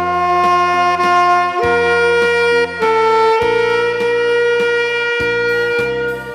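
Instrumental music: a lead instrument plays long held melody notes over a bass line and backing accompaniment.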